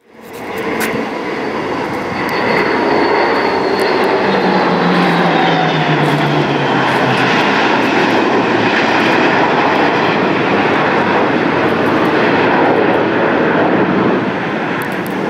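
Jet noise from a Chengdu J-20 stealth fighter flying past: a loud, steady rush whose tones fall in pitch between about four and seven seconds in.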